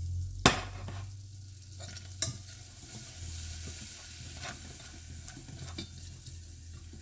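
Butter sizzling in a pan as it is stirred, with a sharp knock about half a second in and another at around two seconds.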